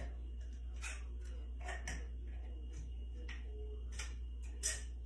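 Light, irregular clicks and taps from an aluminium drink can being handled and worked open over a kitchen sink, with the loudest click near the end, over a steady low hum.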